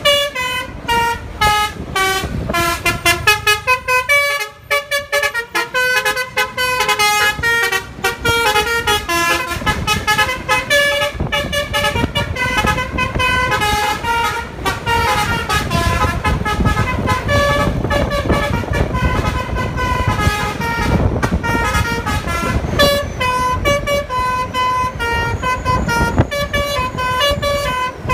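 Telolet multi-tone air horn on a bus playing a melody, a fast run of short horn notes that step up and down in pitch. A low rumble runs beneath the horn.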